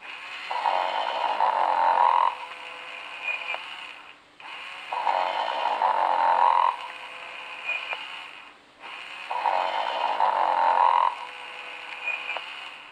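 Tyco Sing & Snore Ernie talking doll playing its recorded snore through its small speaker, three times at an even pace. Each is a long rasping snore followed by a quieter breath with a brief high note near its end.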